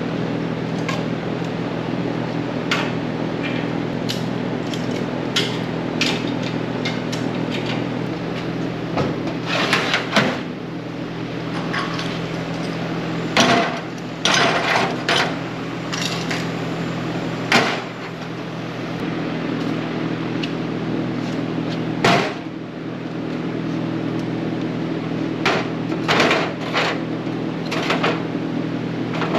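Hand tools (clamps, pliers, a wire brush) clanking as they are set into the steel drawers under a welding table, with drawers sliding and knocking, in scattered sharp clanks. A steady low hum runs underneath.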